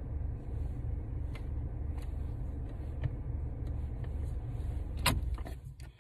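Steady low rumble of a car heard from inside the cabin, with a sharp click about five seconds in, after which the rumble fades.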